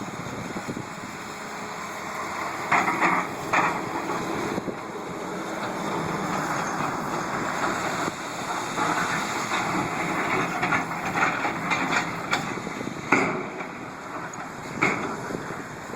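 Heavy construction machinery running steadily, with sharp metallic clanks and knocks about three, thirteen and fifteen seconds in.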